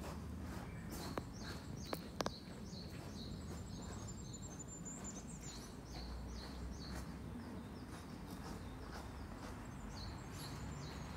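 Footsteps crunching on a gravel path at an easy walking pace, about two steps a second. A few sharp clicks come about two seconds in, and a bird chirps briefly near the middle.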